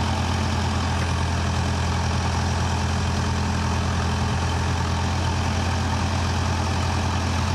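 Backhoe engine running steadily at an even, unchanging speed.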